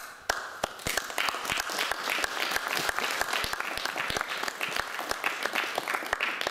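Audience applauding: a dense run of clapping that starts at once and dies away near the end.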